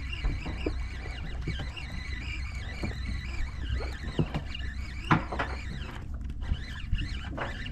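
Steady low rumble of the boat, with scattered clicks and knocks from a conventional jigging reel being handled and cranked. The sharpest knock comes about five seconds in.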